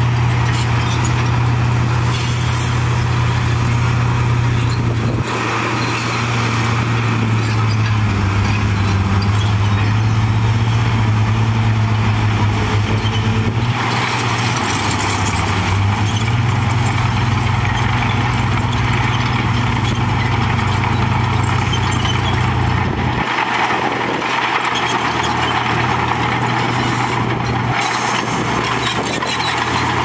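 Diesel engines of Komatsu crawler bulldozers working under load, a steady low drone that changes pitch and strength several times as the machines push soil.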